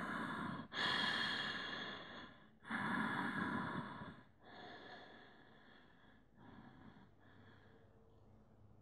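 A man breathing slowly and audibly through a held yoga stretch: a run of long breaths, each one to two seconds, growing fainter from about halfway.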